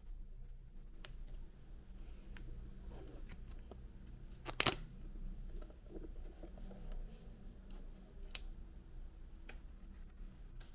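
Hands handling the packaging: scattered small clicks and light rustles over a low room hum, with one sharp, louder click about halfway through.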